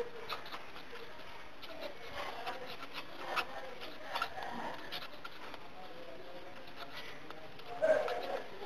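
Marker pen scratching and tapping on paper in short irregular strokes while someone writes, over a steady background hiss.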